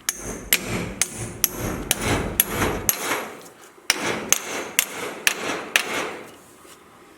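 Hammer blows on a bolt set in an old rubber leaf spring bushing, driving the drilled-out bushing out of the spring eye. Steady strikes about two a second, a brief pause about three seconds in, then another run that stops about six seconds in.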